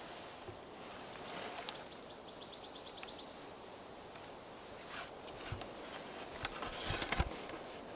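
A high, thin animal trill: separate ticking notes that speed up and run together into a buzzing trill for about a second, then stop short. A few soft clicks and rubs follow near the end, from a hand working oil into a carved wooden bowl.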